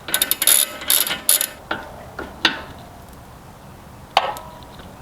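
Hand tools clicking on metal while the front tie rods are turned to adjust the toe: a quick run of clicks in the first second and a half, then a few single clicks.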